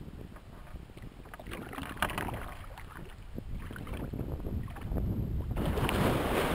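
Kayak paddle strokes in the water with wind on the microphone, then about five and a half seconds in a sudden loud splash and churning of water as a startled manatee surges away right beside the kayak, lifting the boat.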